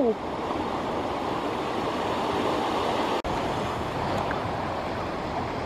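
Surf washing onto a sandy beach: a steady rush of waves, broken by a momentary dropout about three seconds in.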